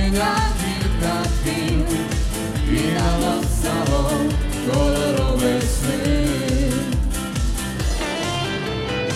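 Live dance-pop band music: a keyboard arrangement over a steady kick-drum beat, about two to three thumps a second, with a melody line gliding above it.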